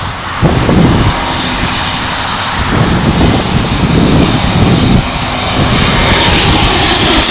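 Airbus A320 jet airliner on final approach, its engines growing steadily louder as it closes in, with a high whine coming up near the end. Wind buffets the microphone underneath.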